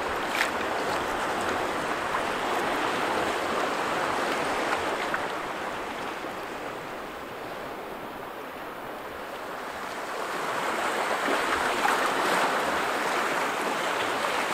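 Choppy lake water splashing and lapping around an open canoe: a steady wash that eases off in the middle and builds again, with a brief click near the start.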